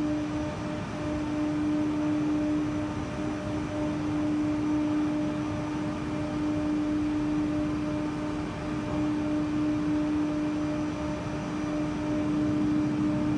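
SW BA 422 CNC horizontal machining center milling a metal block with a face mill: the spinning cutter gives a steady tone over a continuous hiss of cutting, briefly broken about half a second in.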